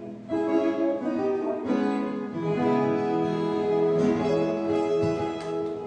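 Viola caipira, the Brazilian ten-string folk guitar, playing a melody of plucked notes that come in just after a brief pause.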